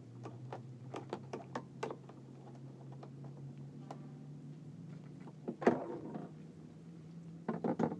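Hollow knocks and clicks of PVC pipes being handled and fitted onto a small boat's outrigger frame. There are a few light knocks in the first two seconds, a louder knock about five and a half seconds in, and a quick run of taps near the end, over a steady low hum.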